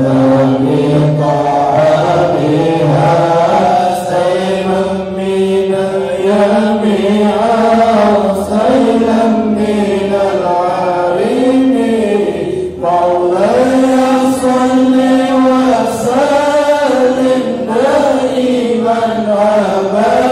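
A group of voices chanting Arabic devotional verses in a continuous, melodic unison, with long held and gliding notes.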